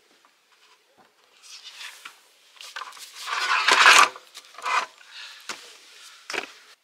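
Irregular rustling and knocking, like objects being handled, loudest around the middle, with a couple of sharp clicks near the end.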